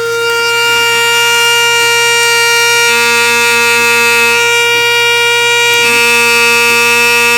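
Electric blade coffee and spice grinder running steadily at full speed, a loud high whine, while it grinds dried fruit to powder.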